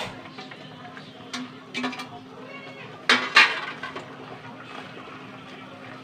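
Stainless steel pans clinking and clattering as a steamer pan is handled and set down on a stack of cookware, with the loudest clatter about three seconds in.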